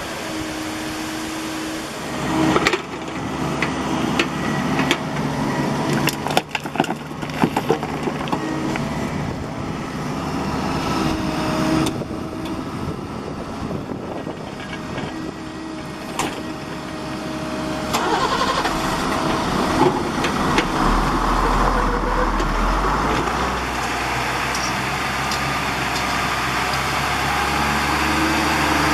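Bobcat E50 mini excavator working dirt: its engine runs steadily, with knocks and clanks scattered through the first half. The engine grows louder and deeper about two-thirds of the way in.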